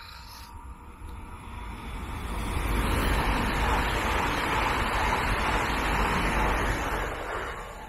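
Z 50000 Francilien electric multiple unit passing at speed: the rush of wheels on rail and air swells over the first few seconds, holds steady while the cars go by, and fades near the end, with a low wind rumble on the microphone.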